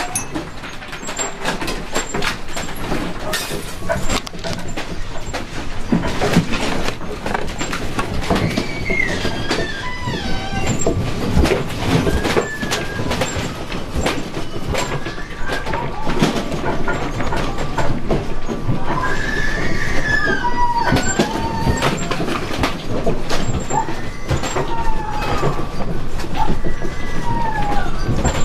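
A house shaking in a strong earthquake: a continuous rumble with dense rattling and clattering of loose objects. From about eight seconds in, high wavering cries rise and fall over the din.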